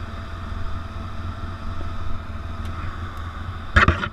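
ATV engine idling steadily, then a quick run of loud knocks and clatter near the end as a rock is shifted over stony ground.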